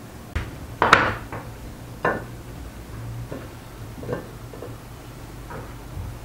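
Kitchen knocks and clinks as vegetables are cut with a knife and laid out on a plate: a knife and wooden cutting board tapping, with plates clinking. The loudest knock comes about a second in, then a few lighter taps are spread out, over a low steady hum.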